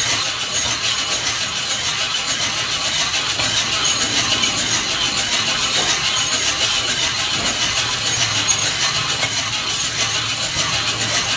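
Coffee beans tumbling and rattling in a hand-cranked mesh drum roaster as it turns over the fire: a steady, evenly ticking rustle. The beans are in the browning stage, before first crack.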